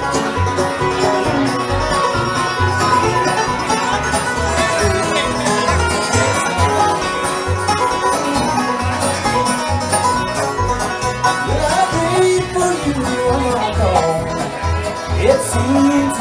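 Bluegrass band playing live without vocals: picked banjo leads over fiddle and dobro, with upright bass notes pulsing steadily on the beat.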